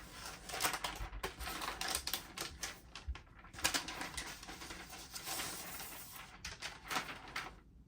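Laptop box and its paper packaging being opened and handled by hand: a dense, irregular run of rustling, crinkling and small clicks.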